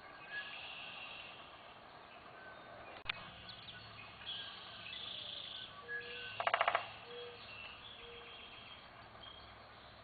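Birds calling: short chirps and whistled notes over a steady outdoor background, with a sharp click about three seconds in and a rapid rattling trill of about half a second past the middle, the loudest sound.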